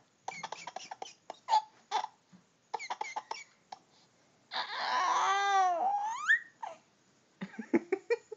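Baby babbling in short bursts of sound, then one long high-pitched squeal about four and a half seconds in that bends up and down in pitch and ends in a rising glide, followed by more short babbling sounds.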